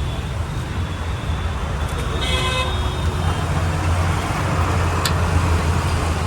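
Road traffic running steadily past, with a short vehicle horn toot about two seconds in.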